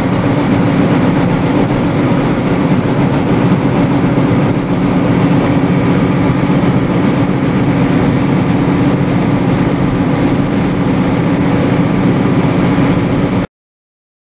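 Tractor-trailer's diesel engine and road noise heard from inside the cab while cruising on the highway: a loud, steady drone that cuts off suddenly near the end.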